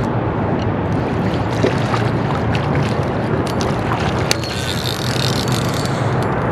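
Wind rushing and buffeting over the camera microphone, a steady loud noise, with a few sharp clicks around the middle.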